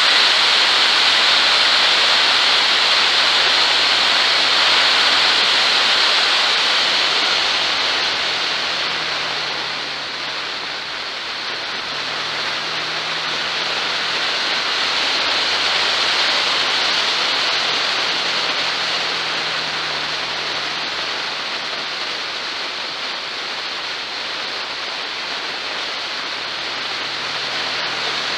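Steady rush of wind over an onboard microphone while the vehicle travels at road speed, with a faint engine note underneath that shifts in pitch several times as the speed changes.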